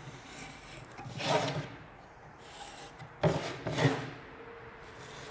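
Pencil scratching across a pine board as a circle is traced with a thin plywood strip pivoting on a nail, with a louder scraping stroke about a second in and two more a little past the middle.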